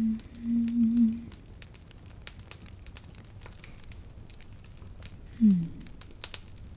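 A woman humming a few low notes, which stop about a second in. Faint crinkly rustling and small clicks follow close to the microphone. About five seconds in comes a single short hummed note falling in pitch.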